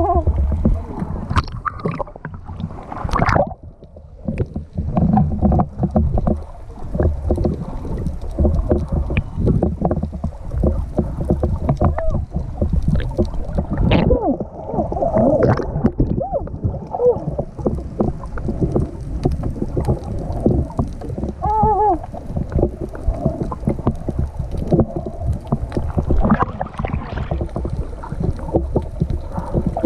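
Underwater sound picked up by a camera in a waterproof housing while snorkelling: a muffled low rushing and sloshing of water, dense with bubbly clicks and pops as swimmers kick and move. A brief muffled wavering tone comes through about 22 seconds in.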